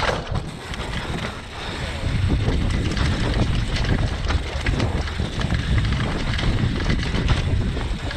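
Downhill mountain bike running fast down a dirt forest trail: wind buffeting the action camera's microphone as a low rumble, over frequent rattles and knocks from the tyres and bike crossing roots and rocks.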